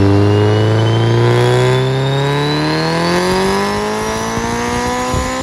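Turbocharged BMW M42 four-cylinder in an E30 making a full-throttle pull on a roller dyno, its revs climbing steadily without a break, with a high whine rising alongside. The engine lets off abruptly right at the end.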